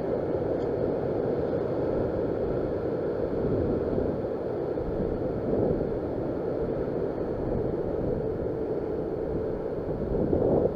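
Ocean surf washing and foaming over a rock ledge, with wind buffeting the microphone; the wash swells louder briefly about halfway through and again near the end.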